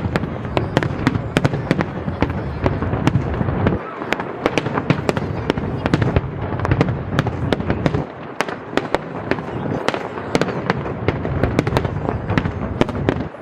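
Aerial fireworks display: a dense run of sharp bangs and crackles, several a second, over a continuous rumble. The low rumble drops off briefly about four and eight seconds in.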